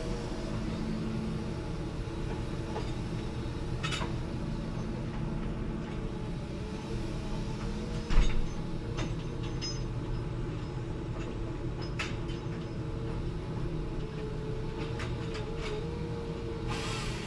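Forestry machine's engine running steadily, with a few scattered clanks and one loud thump about eight seconds in.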